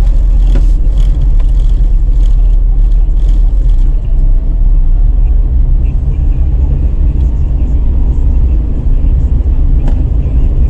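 Car driving along a brick-paved street, heard from inside: a loud, steady low rumble of engine and tyres on the pavers. There are a few short clicks in the first few seconds and one near the end.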